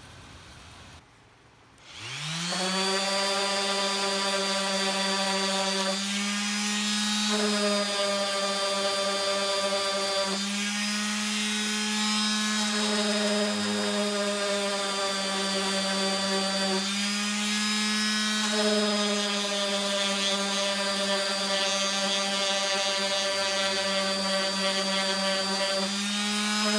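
Random orbital sander starting up about two seconds in, spinning up quickly, then running steadily while sanding a wooden block, with a steady hum, a hiss over it, and its pitch shifting slightly a few times.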